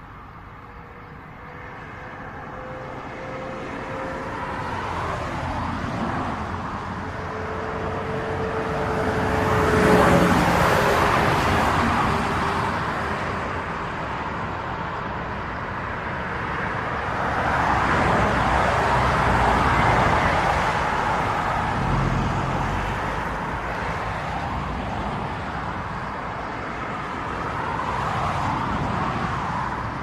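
Cars passing one after another on a highway, the tyre and engine noise swelling and fading with each pass. The loudest pass comes about a third of the way in, its tone dropping in pitch as it goes by; further passes swell near the middle and near the end.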